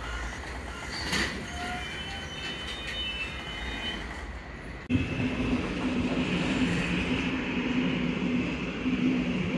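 ČD class 193 Siemens Vectron electric locomotive hauling a EuroCity train past at speed. Its noise comes in abruptly about five seconds in and turns into a steady rush with a low hum.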